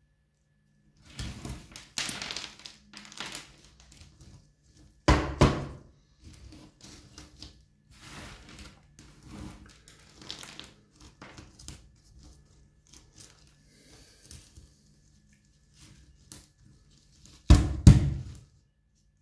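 A small plastic orchid pot and its root ball being handled on a tabletop: irregular knocks, thunks and scraping, with loose bark-and-perlite potting mix crumbling and rustling. The two loudest thunks come about five seconds in and near the end.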